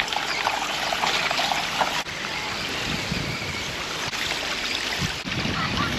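Steady rush of running water from a small waterfall.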